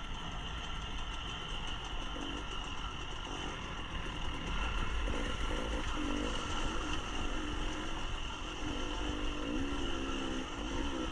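KTM dirt bike engine running under race load, the revs rising and falling as the rider works the throttle over rough trail, over a constant low rumble.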